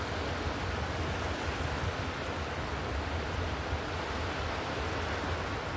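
Ocean-wave white noise for sleep: a steady, even rushing hiss with a deep low rumble underneath and no separate wave crashes.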